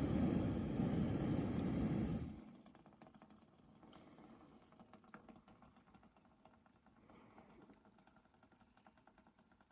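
Background music that cuts off about two seconds in, followed by faint, irregular small clicks and ticks.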